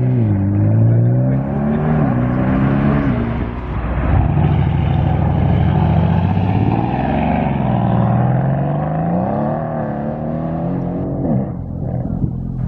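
Sports car engine accelerating hard, its pitch climbing and then dropping sharply at each gear change, several times over.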